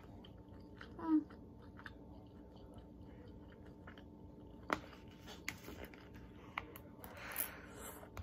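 Close-up mouth sounds of someone chewing Taiwanese sausage and rice: soft smacks and small clicks, with a brief hummed 'mm' about a second in, a sharper click near the middle and a breathy puff near the end.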